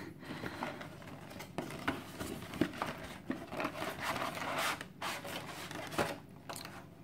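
Cardboard box packaging and a clear plastic tray being handled and pulled apart: uneven rustling, scraping and crinkling, with a few sharp clicks.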